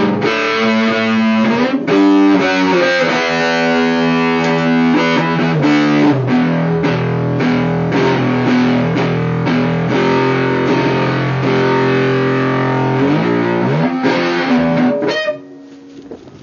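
Electric guitar played through a DIY overdrive/distortion pedal built around an MPSA13 transistor with LM386 and TDA2003 amplifier chips: distorted, sustained chords and notes with a few slides. It cuts off sharply about a second before the end.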